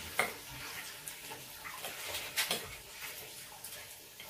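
Knife and fork clinking and scraping on a ceramic plate while cutting food, with two sharper clinks, one just after the start and one about two and a half seconds in.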